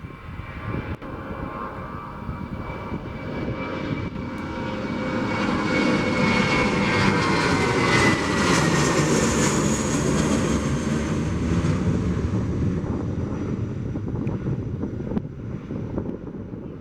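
Airbus A320 jet airliner passing by on its takeoff run at takeoff thrust: the engine noise swells to its loudest about eight to nine seconds in, then eases off, its high whine falling in pitch as it goes past.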